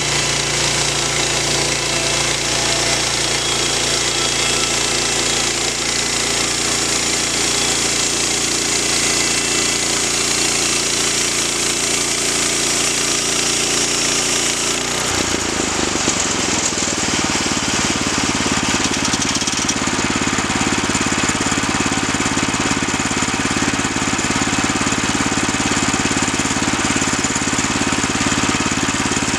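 Woodland Mills portable bandsaw mill running, its engine driving the band blade through a pine log. About halfway through, the high hiss of the cut drops away and the engine runs on with a changed, lower note, as the cut comes to an end.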